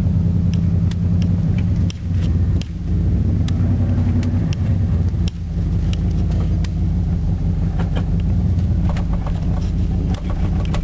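Chevrolet 305 V8 pickup engine running steadily under load, heard from inside the cab while the truck crawls over rough ground in four-wheel-drive low, with scattered rattles and knocks. The engine note dips briefly about two seconds in and again just past five seconds.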